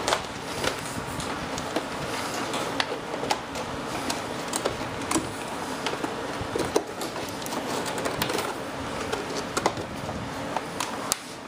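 Irregular clicks, ticks and rustling as hands pull and work wiring loose inside a composite RC jet's fuselage, over a steady background hiss.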